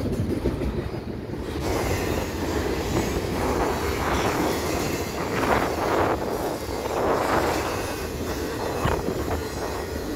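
BNSF double-stack intermodal train rolling past: a steady rumble of steel wheels on rail with the rattle and clatter of the container well cars, swelling now and then as cars go by.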